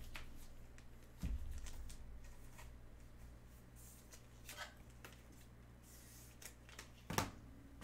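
Faint rustling and light clicks of trading cards and wrappers being handled, with a dull knock about a second in and another near the end.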